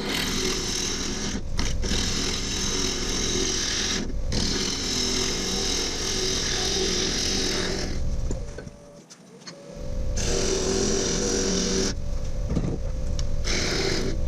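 Wood lathe spinning a walnut workpiece while a turning tool is worked against it, a steady rough cutting noise over the faint hum of the lathe. The cutting breaks off briefly several times, and longest about eight to ten seconds in.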